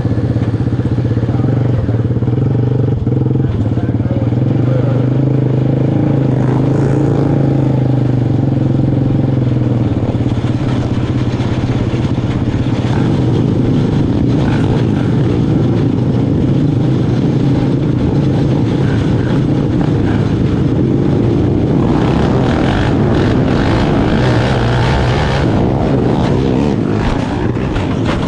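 Open 500 outlaw kart engine running loud and steady. About 22 seconds in it turns rougher and fuller.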